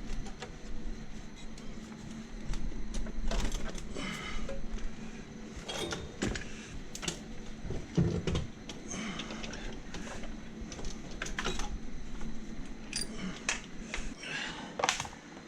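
Scattered metallic clinks and knocks of hand tools and loosened bolts during removal of an Audi 2.6 V6 cylinder head, with a heavier knock about eight seconds in, over a steady low hum.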